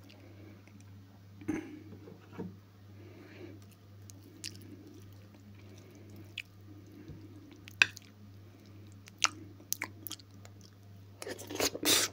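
Close-miked eating sounds: soft chewing of fried potatoes with mayonnaise and a spoon clicking against a plate every second or two, then louder chewing and biting near the end as a new spoonful goes in.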